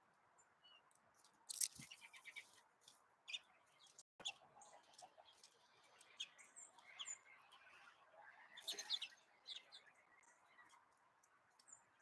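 Faint chirps and tweets of small songbirds at a backyard feeder, mixed with scattered light clicks and taps. A busier flurry comes just under two seconds in and another around nine seconds.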